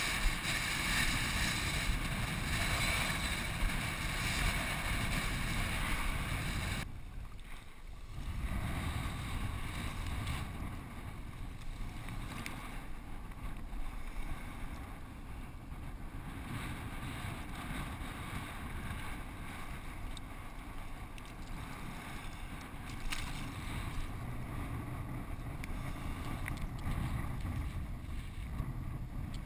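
Wind buffeting a head-mounted camera's microphone out on an open tidal flat: a steady rushing rumble, louder and hissier for the first seven seconds, dropping suddenly about seven seconds in, then steadier and lower.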